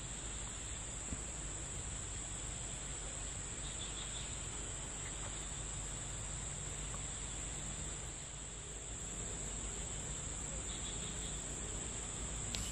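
Insects trilling in a steady, unbroken high-pitched drone, with faint outdoor background hiss.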